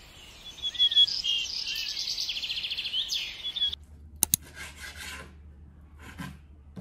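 Birds chirping, with short rising and falling calls and a fast trill, for about the first three and a half seconds. Then the sound changes abruptly to a low hum with two sharp clicks and a few short bursts of rasping, rubbing noise.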